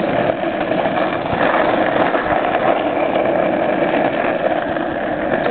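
Hard rear wheels of a drift trike rolling and sliding on asphalt, a steady rough grinding rumble with no breaks.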